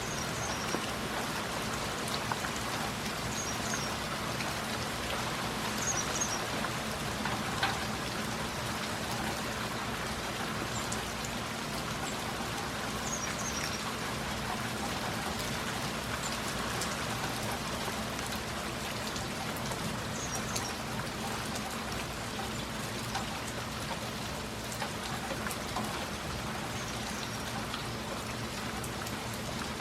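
Steady rain falling, with faint short high chirps every few seconds.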